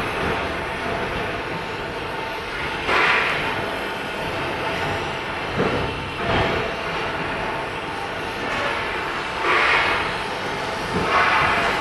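Gas welding torch flame hissing steadily, swelling louder briefly several times.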